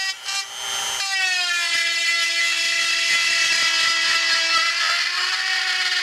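Handheld electric rotary tool with a cutting bit running at a steady high-pitched whine as it cuts into the ABS plastic of a motorcycle fairing to enlarge a hole. The level dips briefly just after the start, then the whine holds steady.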